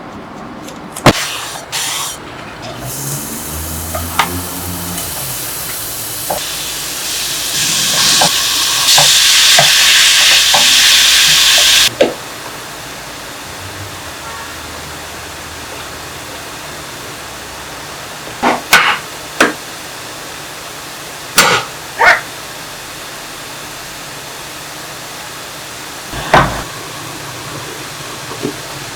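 Food sizzling in a frying pan, with stirring. The sizzle swells loud and then cuts off suddenly about twelve seconds in. Later come a few sharp knocks of a utensil against the pan.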